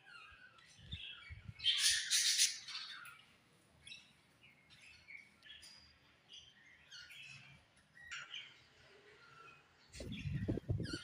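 Budgerigars chirping and chattering, loudest in a burst about two seconds in, then scattered short chirps. Near the end there is a low rumbling thump.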